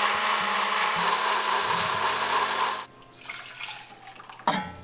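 Countertop blender running steadily as it purées a hot orange-juice, wine and saffron sauce, cutting off abruptly almost three seconds in. The sauce is then poured from the glass jar into a metal saucepan, with a short knock near the end.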